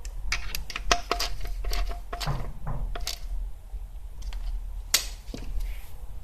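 Irregular metallic clinks and knocks of hand tools and car parts being handled, some of them ringing briefly, over a low steady hum.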